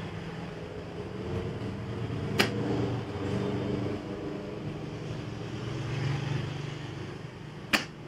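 Banknotes being counted by hand, with two sharp slaps as stacks of notes are put down on a wooden table, about two and a half seconds in and near the end. A low steady hum runs underneath.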